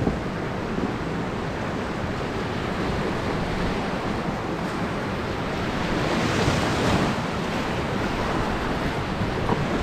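Fast, choppy river water rushing steadily around an inflatable raft, with wind buffeting the microphone; the rush swells a little just past the middle.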